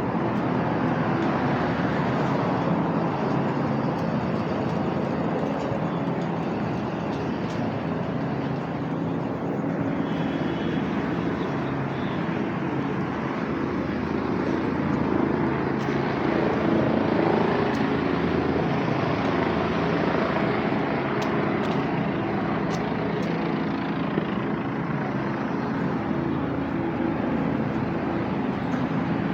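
Steady engine drone with street noise around it, running without a break.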